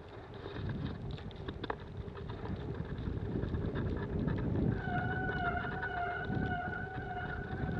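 Wind gusting against the microphone in a snowstorm, a low rumbling buffeting. About five seconds in, a steady high whistling tone with overtones starts and holds, wavering slightly.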